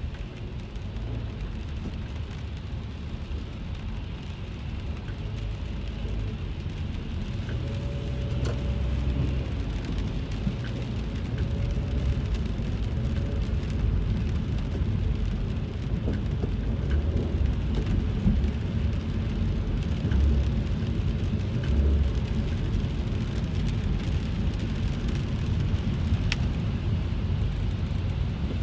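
Rain falling on a car's roof and windshield, heard from inside the cabin over the steady low rumble of the car driving, with scattered small ticks of drops.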